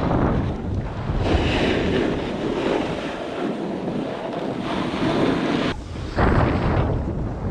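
Rushing wind buffeting the microphone of a board-mounted or body-worn action camera as a snowboard slides fast down a piste, its base and edges scraping over the snow. The noise drops out briefly about six seconds in, then comes back.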